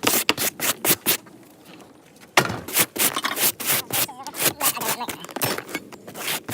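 Rapid, irregular knocking and scraping of timber roof battens and tiles being handled and pulled off a roof, pausing briefly about a second in and starting again just before halfway.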